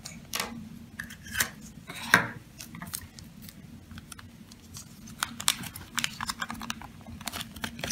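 Small plastic parts of a Kinder Surprise being handled and unwrapped: a run of sharp clicks and crinkles from the capsule pieces and the toy's plastic wrapper, over a faint steady hum.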